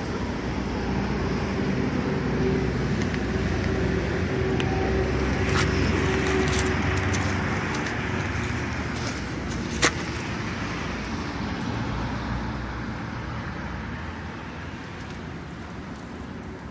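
Hyundai 5-ton truck's diesel engine idling steadily, with a low even hum. A single sharp click sounds about ten seconds in.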